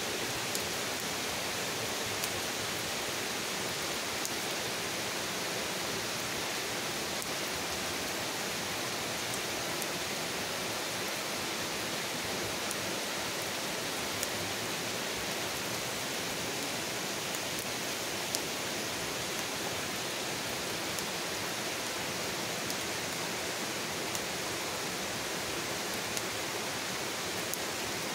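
Steady rain falling on trees and a lawn: an even hiss with a few sharp drip ticks scattered through it.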